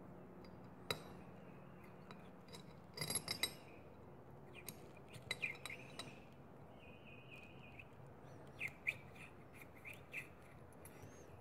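Faint metallic clicks, clinks and light scraping as feeler gauge blades are slid in and out at a valve on a Kawasaki Z125 cylinder head to check valve clearance. The sounds come in scattered small clusters.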